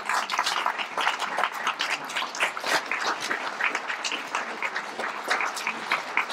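An audience applauding: many hands clapping together in a dense, continuous patter.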